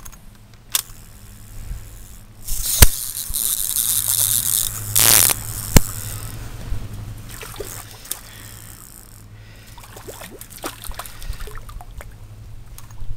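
Close handling noise from a spinning fishing rod and reel: a loud rustling rush lasting about three seconds with two sharp clicks, then softer scraping as the reel is worked by hand, and scattered small clicks near the end.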